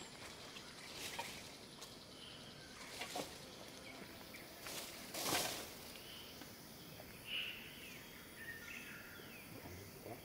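Rummaging in a car's boot: a few short rustles of bags and packages being handled, the loudest about five seconds in, over a steady hum of tropical forest insects and a few bird chirps.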